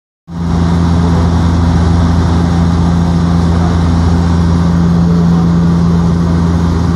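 Steady drone of an airplane in flight heard from inside the cabin: a constant low engine hum with a few steady tones over rushing air noise.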